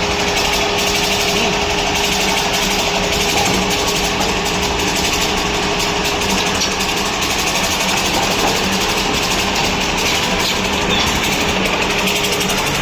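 Automatic edge banding machine running with a steady mechanical whir and a constant low hum.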